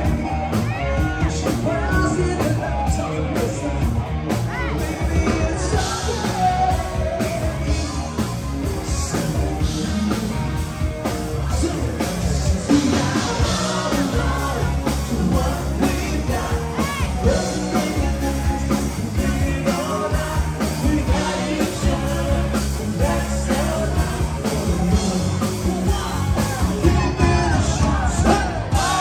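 Live rock music with a singer, the band playing throughout.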